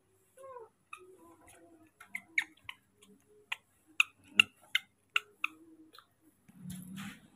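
A baby macaque close by gives a short falling squeak, then about ten sharp, irregular clicks and taps follow over a few seconds as it clambers on the wooden boards. A brief rustle comes near the end.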